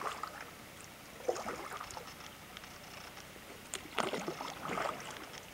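Kayak paddle strokes in calm creek water: the blade dipping and pulling, with splashes and drips at irregular intervals, busiest around four seconds in.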